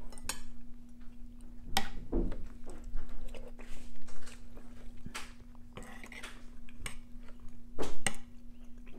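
A metal spoon clinking and scraping against a ceramic soup bowl, a few sharp clinks standing out, with sipping and chewing of soup in between.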